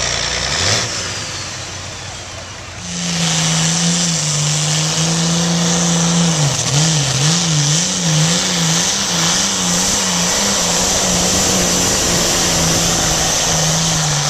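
Diesel engine of an antique farm tractor under full load, pulling a weight-transfer sled. About three seconds in it comes in loud and steady, its pitch wobbles quickly up and down for several seconds mid-pull, then it holds steady and begins to drop right at the end.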